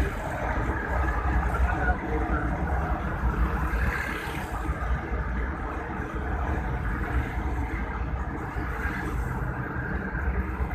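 Car driving along a paved road: steady engine and tyre rumble.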